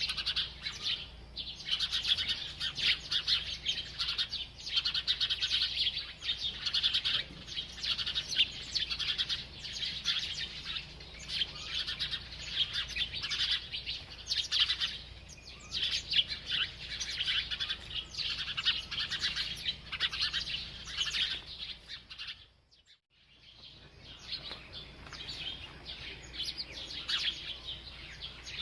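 A group of sparrows chirping in a dense, continuous chatter of quick high chirps, briefly cutting out about two-thirds of the way through.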